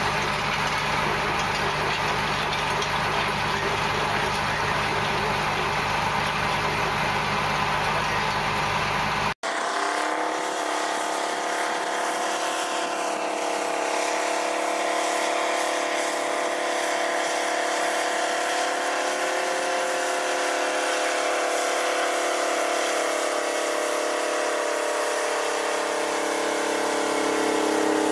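Big four-wheel-drive farm tractor diesels running under load. First a green John Deere pulling a field cultivator runs steadily with a noisy rush. After an abrupt cut about nine seconds in, the 'Earthquake' tractor pulling a plow gives a steady engine drone with several held tones, which gets louder near the end.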